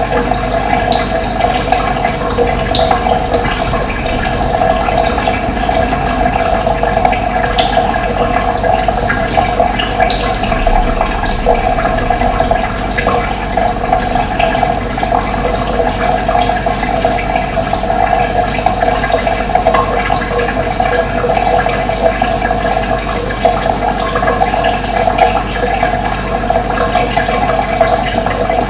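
Steady rush of running water, with short high bird chirps now and then.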